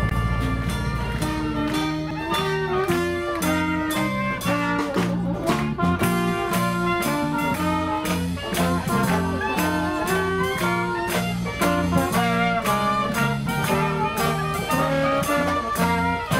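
Dixieland jazz band playing a lively tune: a bass line steps from note to note beneath the melody over a steady beat.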